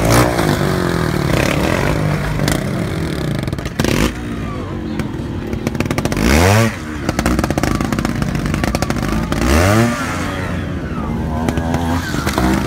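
Trials motorcycle engines blipping and revving in short bursts as the riders climb over rocks, with two sharp rising revs about halfway and three-quarters of the way through. Knocks and clatter come from the bikes on the stones.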